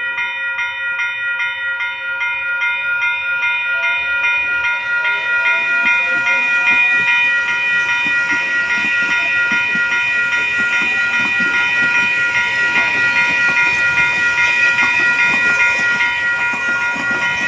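Level crossing warning bells ringing in a quick, steady repeating pattern while a six-car Auckland AM class electric train pulls in past the crossing. Its running noise of wheels on rails grows louder from about six seconds in.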